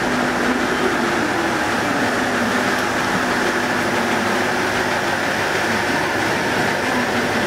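Aizu Railway AIZU Mount Express diesel railcar standing at the platform, idling with a steady hum and hiss.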